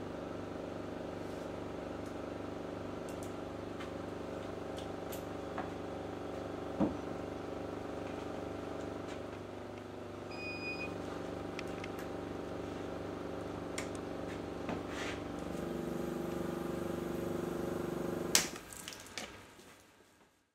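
Air vacuum pump of a home-built PCB UV exposure box running with a steady hum. A brief high beep sounds about halfway through: the timer buzzer marking the end of the two-minute exposure. Near the end a loud click comes, and the pump winds down and stops.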